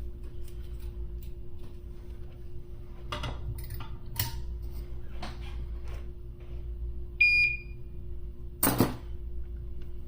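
A single short electronic beep about seven seconds in, among a few brief clicks and scrapes of hand work on the circuit board, over a steady low hum.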